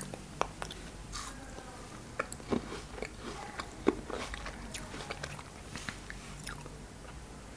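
Close-miked chewing of frozen cherries: irregular crisp crunches and wet mouth clicks, the sharpest crunch about four seconds in.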